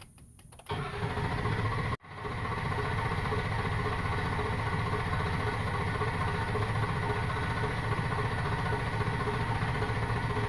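A 2004 Ford F-250's starter cranks the engine, which turns over steadily without firing: a crank-no-start, with the system not building any pressure, as the owner finds. The cranking starts just under a second in, cuts out for an instant at about two seconds, then carries on.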